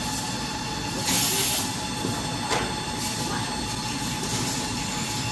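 Tissue paper production line machinery running, a chain-driven log accumulator and conveyors giving a steady mechanical noise with a thin steady tone. A short hiss comes about a second in and a single sharp clack about two and a half seconds in.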